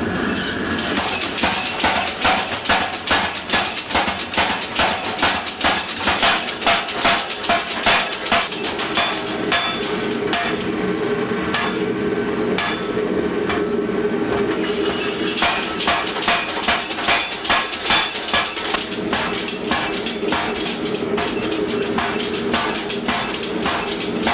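Homemade power hammer striking a hot steel bar, drawing it out. There are two runs of regular blows at about two a second, with a steady hum between them.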